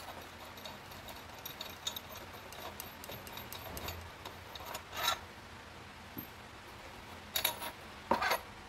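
Light metallic clicks and clinks of a hand tool working the top nut of a scooter's steering-head bearing loose and lifting it off. Sharper clinks about five seconds in and twice near the end.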